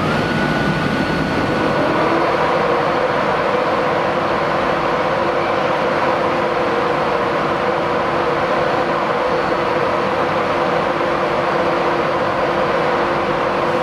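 Class 91 electric locomotive standing at the platform, its cooling fans and blowers running with a steady loud hum made of several held tones. It grows louder over the first two seconds, then holds level.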